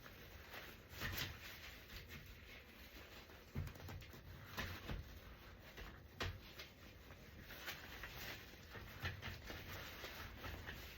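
Faint handling noises of a Graco Pack 'n Play playard being assembled: scattered light clicks and knocks of its parts with soft rustling between them.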